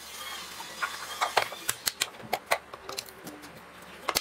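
Irregular small clicks and light taps of plastic and metal parts being handled: the plastic cover going onto an air compressor's pressure switch and a screwdriver working its screw. There are about a dozen sharp clicks, spread unevenly.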